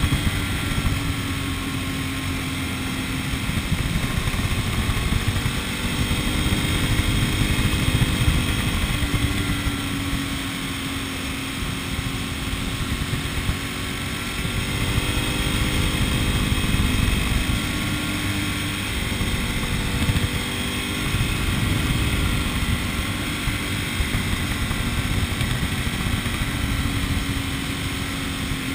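A vehicle's engine running under way over a heavy rumble of road noise, its pitch drifting gently up and down as the speed changes.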